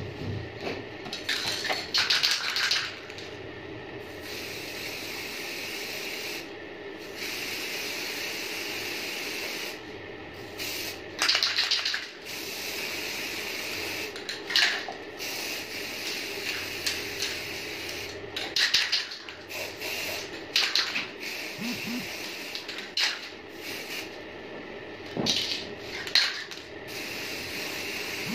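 Aerosol spray-paint can hissing in repeated short bursts, spraying black paint, over a steady background noise.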